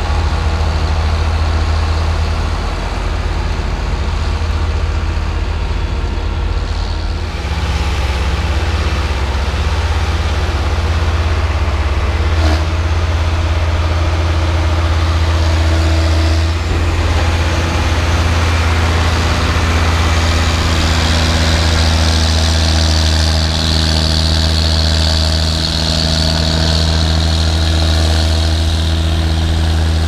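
Diesel engines of large John Deere tractors running steadily under load as they push and pack chopped corn silage on the pile. The engine note shifts about a quarter of the way in and again past halfway, and a higher whine rises over the drone in the second half.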